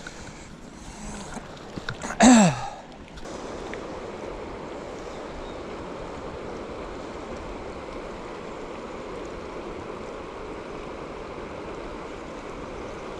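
A man's short sigh, falling in pitch, about two seconds in. Then a steady rushing noise starts suddenly a second later and holds evenly.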